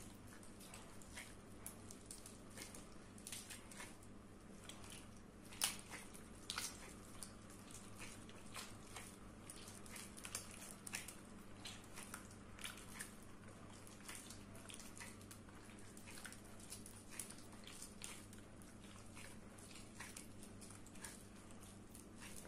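A gloved hand squeezing and stirring margarine through milk and other liquid ingredients in a mixing bowl to blend them: faint, irregular wet squelches and small splashes, a couple of them louder about six seconds in, over a steady low hum.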